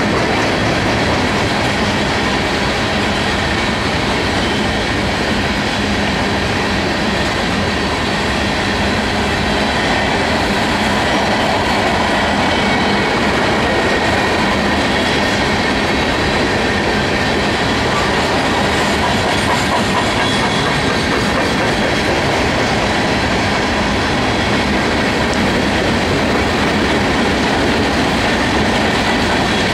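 UCEX coal hopper cars of a Union Pacific coal train rolling past on the rails: a steady, loud noise of steel wheels running on track.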